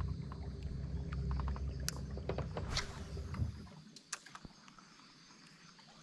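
Electric trolling motor on a small rowboat running with a low rumble and a steady hum, then shutting off suddenly near four seconds in. A few light clicks and taps follow in the quiet.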